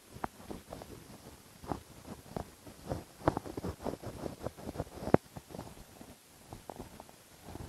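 Hand-held whiteboard eraser rubbed across a whiteboard in quick, uneven wiping strokes, with a short pause about six seconds in.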